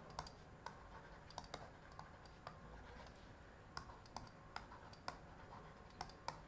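About a dozen faint, irregular clicks and taps of a stylus on a writing surface as words are handwritten, over a quiet room.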